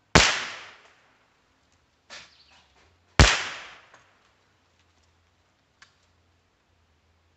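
Two rifle shots about three seconds apart, each a sharp crack with a fading echo, heard from downrange at the target. A much quieter knock comes about two seconds in, between the shots.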